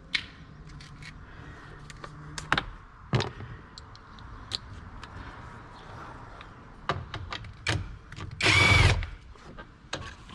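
Scattered clicks and knocks of a tool and plastic door trim being handled, then near the end a power drill-driver with a T20 Torx bit spins briefly with a short whine, backing out a Torx bolt.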